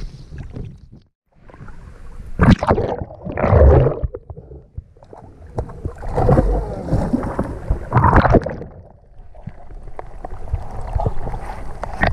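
Swim fins kicking and splashing at the water's surface, with water sloshing over the microphone as it dips in and out. Several loud splashy bursts come in the first two-thirds, then a steadier, quieter wash of water noise.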